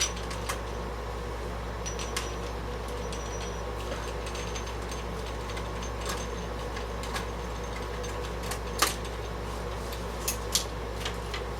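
Scattered sharp clicks and small knocks of hand tools and metal parts, a ground wire being unscrewed and worked free inside an AT computer case, the loudest knock a little under 9 seconds in. A steady low hum runs underneath.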